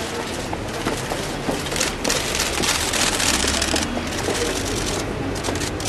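Commotion of a jostling press scrum: dense rustling and scuffing close to the microphone, with many rapid sharp clicks, louder in the middle.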